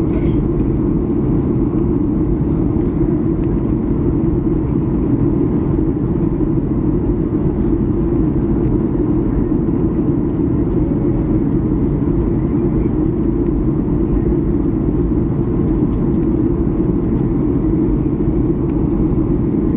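Steady low rumble of a vehicle, deep in pitch and even in level throughout, with no sudden events.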